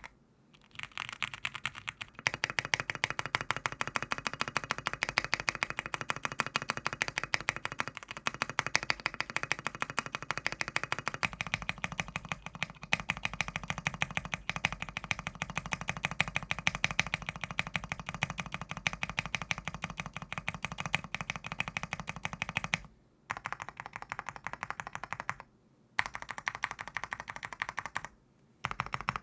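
Fast, continuous typing on a 75% mechanical keyboard: a dense run of keystroke clacks with a few brief pauses near the end. The keystrokes take on a deeper tone from about eleven seconds in.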